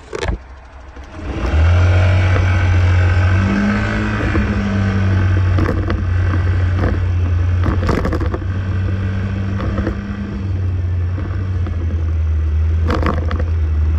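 Motorcycle riding along, its engine running under a heavy steady wind rumble on the microphone that sets in about a second and a half in. A few short knocks sound along the way.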